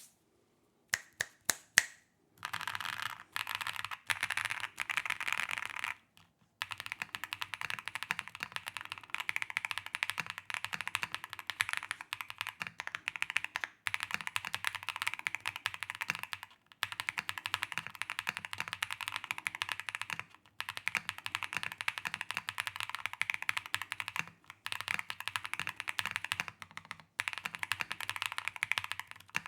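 Mechanical keyboard fitted with Wingtree Yunie linear switches being typed on: a few single keystrokes at first, then fast continuous typing in long runs with brief pauses.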